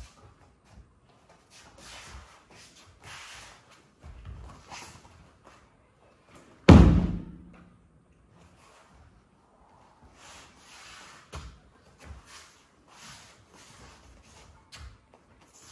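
A judoka thrown during nage no kata lands on the tatami with a breakfall: one loud slap and thud about seven seconds in, echoing briefly in the hall. Soft shuffling of feet on the mats and rustling of judogi come before and after.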